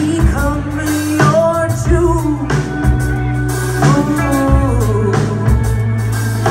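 Live band playing: a woman sings lead in long, wavering phrases over electric guitar, bass and a drum kit.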